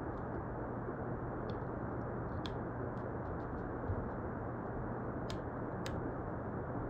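Faint, scattered clicks and ticks of small repair tools handling a smartphone during a screen replacement, about five in all, over a steady hiss and low hum.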